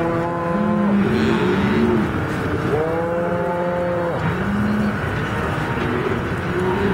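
Cattle bawling in a branding pen: one long moo after another, about a second each, overlapping at higher and lower pitches.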